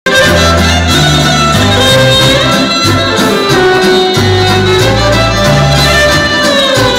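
Loud dance music: a gliding lead melody over a bass line that changes note every half second to second.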